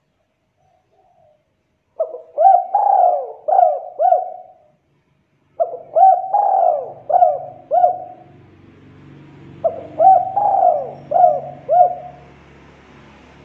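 Spotted dove cooing its song: three phrases of about five short coos each, a second or so apart. A faint low hum comes in during the second phrase.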